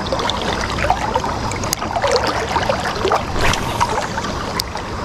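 Shallow creek water running, with many small splashes.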